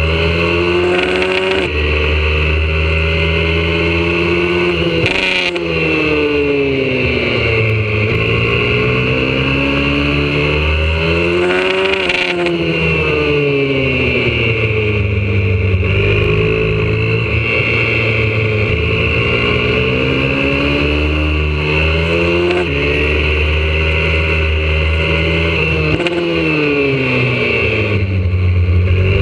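YCF 125cc four-stroke single-cylinder pit bike engine at racing speed, heard from on board. Its pitch climbs under acceleration with brief dips at each upshift, then falls as the bike slows for corners, several times over.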